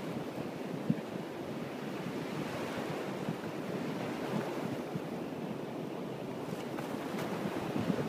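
Surf washing steadily onto a sand beach, with wind rumbling on the microphone and one brief bump about a second in.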